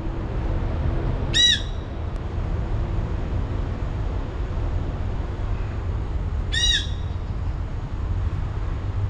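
Jandaya parakeet giving two short, harsh squawks about five seconds apart, over a steady low rumble of city traffic.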